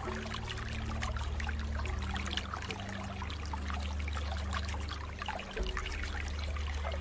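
Flowing water trickling and splashing continuously, with many small quick splashes over a steady low rumble.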